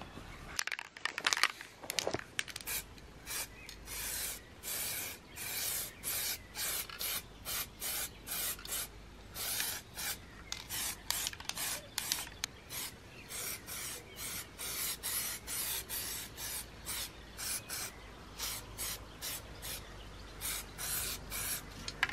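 Spray paint hissing out in many short bursts, about one to two a second, as black paint is sprayed over a grey-primed engine block.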